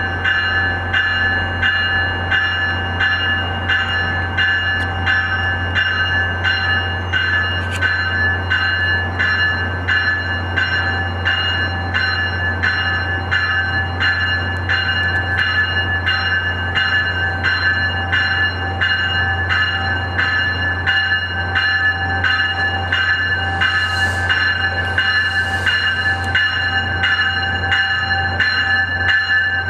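A GO Transit train's bell ringing steadily, about two strokes a second, as the train creeps into the station platform, over a low steady engine drone. A few short air hisses come near the end.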